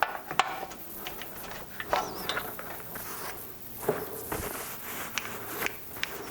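Piston being pushed into and worked around in the cylinder bore of a Briggs & Stratton mower engine: scattered light metal clicks, knocks and scrapes.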